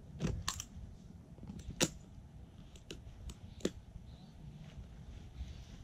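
A few sharp, separate clicks and knocks, the loudest about two seconds in, as a PVC pipe driven into the soil is twisted and worked back out of the ground by hand.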